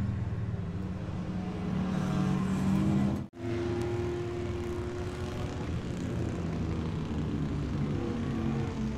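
Small two-stroke racing motorcycle engine running at steady revs. A sudden cut about a third of the way in switches to another engine running steadily at a different pitch.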